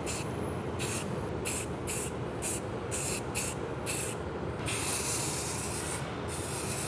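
Aerosol can of gray spray primer hissing in a quick series of short bursts, then in longer continuous sprays near the end, over a steady low rumble.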